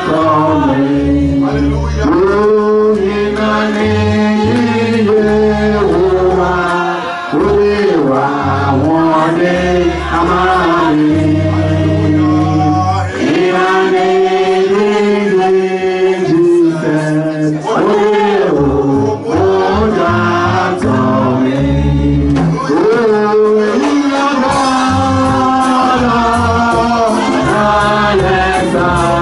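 A man singing a church worship song into a microphone, backed by a live band with keyboard and a moving bass line.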